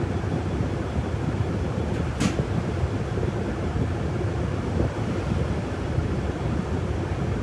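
Inside a city bus cabin: the steady low rumble of the engine and road noise, with one brief sharp click about two seconds in.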